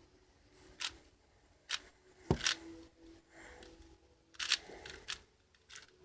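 Irregular plastic clicks and clacks of a 4x4 Rubik's cube being turned, with one heavier knock about a third of the way in.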